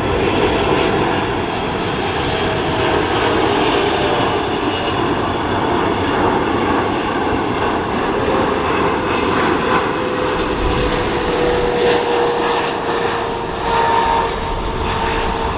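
Jet airliner's engines on landing approach: a steady loud noise with a whining tone that slowly falls in pitch over the second half.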